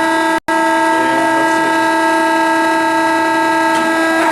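Marvel V10A2 vertical band saw running, giving a steady whine at one pitch with overtones. The sound cuts out for a moment about half a second in.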